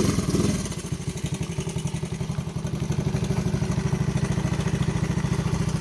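Honda ST50 Dax's 49cc single-cylinder four-stroke engine running steadily just after being started, with a fast, even exhaust beat.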